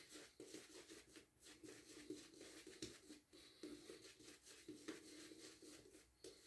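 Near silence, with faint, irregular soft scratching and ticking sounds.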